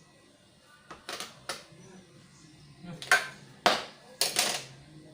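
Kitchen clatter: a run of sharp knocks and short scrapes of utensils on a hard surface, sparse at first and loudest in the second half.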